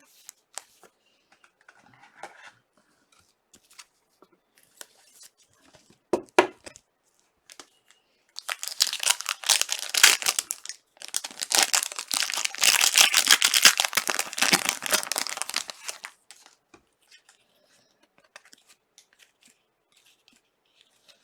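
Trading card pack wrapper being torn open and crinkled in two long spells in the middle, with light taps and clicks of cards being handled around them.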